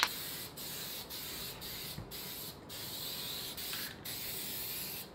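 Aerosol can of black gloss appliance epoxy spraying with a steady hiss. The hiss is broken by short gaps every half second to a second as the nozzle is let off between passes.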